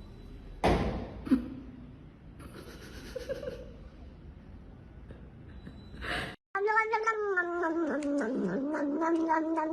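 A thump and a click near the start over quiet background noise, then a cat's long drawn-out yowl that begins about two-thirds of the way in, dips in pitch and then holds steady for several seconds.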